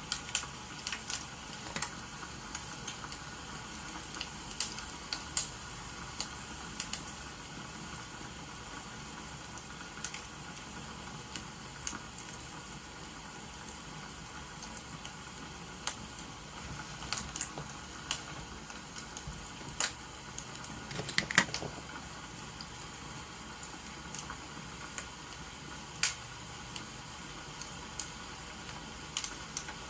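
Wood fire crackling: irregular sharp pops over a steady hiss, with a cluster of louder pops a little past the middle.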